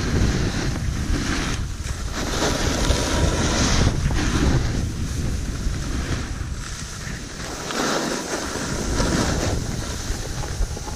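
Wind buffeting the microphone of a pole-mounted camera during a snowboard descent, mixed with the hiss of the snowboard sliding over snow, which swells and fades in surges.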